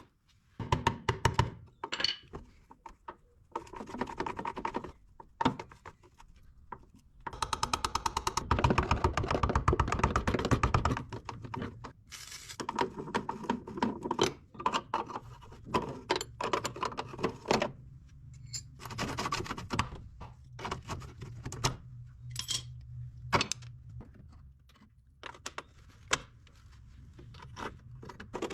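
Tools working on metal car parts: a run of knocks, taps and clinks, with a few seconds of fast, even clicking about a third of the way through.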